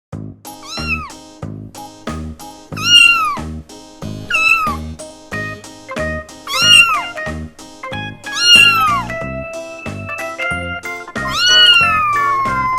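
Kitten meowing about six times, each meow rising and then falling in pitch, the last one longer and drawn out, over background music with a steady beat.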